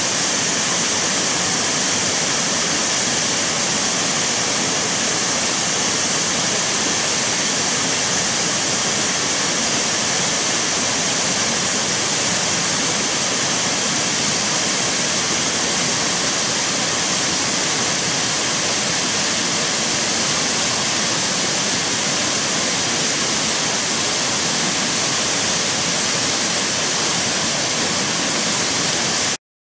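Waterfall pouring over rock into a pool: a steady, heavy rush of water, strongest in the high hiss. It cuts off suddenly near the end.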